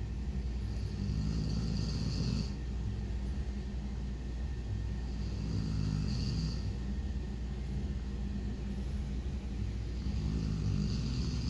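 A sleeping dog snoring: three slow, drawn-out snores about four to five seconds apart, over a steady low hum.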